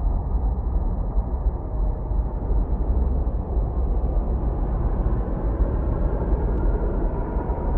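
Designed black hole ambience sound effect: a steady, deep rumbling drone of dense low noise, growing slightly brighter in the middle range near the end.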